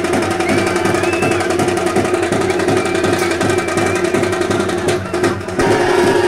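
Loud, fast festival drumming with a steady driving rhythm and a held droning tone beneath it. Short high gliding calls cut through now and then. The sound thins out briefly about five seconds in, then comes back.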